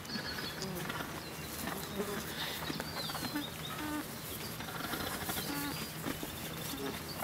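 Farmyard ambience: small birds chirping over and over, with brief low calls from animals.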